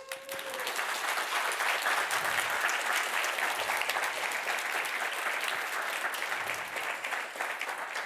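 Audience applauding, starting suddenly and keeping up a steady, dense clatter of many hands clapping.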